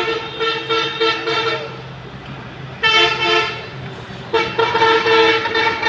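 Vehicle horns honking in repeated short blasts of a steady two-tone note: a run of blasts at the start, one about three seconds in, and another run from about four and a half seconds.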